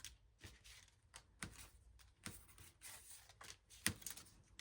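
Soft, irregular clicks and taps of small paper labels and tags being handled and sorted by hand, with one sharper tap a little before the end.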